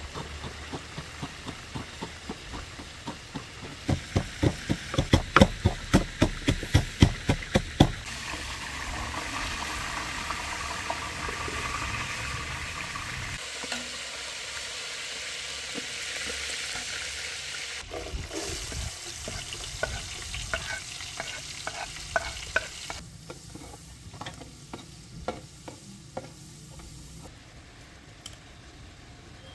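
Wooden pestle pounding in a wooden mortar, about three sharp strikes a second, louder from about four seconds in and stopping at about eight seconds. A long stretch of steady sizzling follows, then scattered knocks of a ladle in a large cooking pot near the end.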